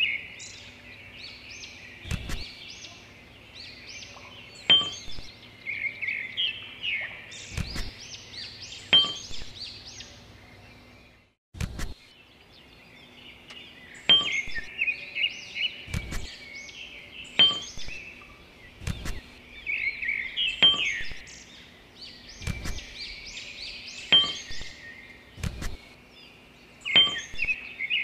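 Small birds chirping and twittering busily throughout, with a light knock or clink every second or two.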